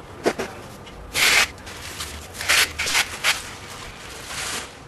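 Irregular bursts of rubbing and scraping, about six in a few seconds, the longest about a second in, over a faint background hiss.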